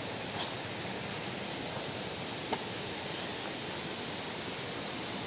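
Steady, even hiss of rushing water from a rocky mountain stream, with one faint click about two and a half seconds in.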